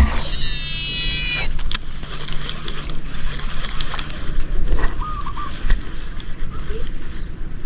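A fishing reel's spool whirring for about a second as line pays out on a cast, its pitch dropping at the end. A steady rushing background follows, with a few short chirps about five seconds in.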